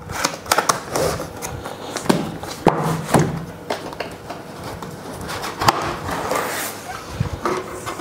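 Cardboard box being handled and opened: irregular taps, scrapes and rustling of cardboard as the lid is lifted off.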